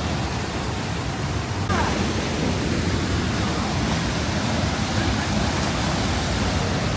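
Steady rush of a waterfall in heavy flow, a dense wash of falling water that gets louder about two seconds in.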